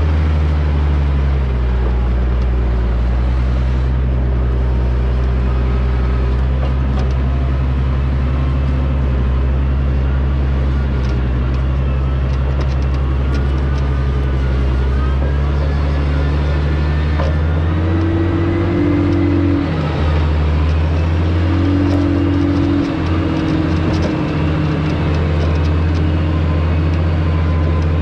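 A John Deere logging machine's diesel engine running continuously. The revs drop about a second and a half in and climb again a little past the middle. A higher whine comes in twice in the second half.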